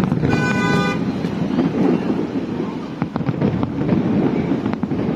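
Fireworks crackling and banging in a continuous low rumble, with a short horn toot, under a second long, near the start.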